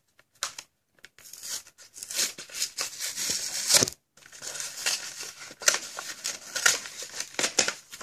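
A plastic blister pack of trading cards being torn open: plastic crinkling and packaging ripping. The sound comes in several bursts of crackle and sharp snaps, with short breaks about one and four seconds in.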